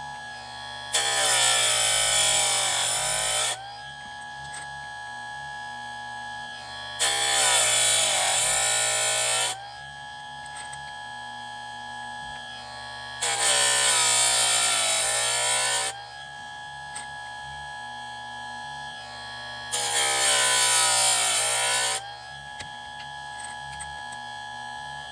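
Electric chainsaw sharpener running with a steady motor whine, its grinding wheel lowered onto the chain's cutter teeth four times, each grind lasting about two and a half seconds, roughly every six seconds. The motor's pitch sags during each grind.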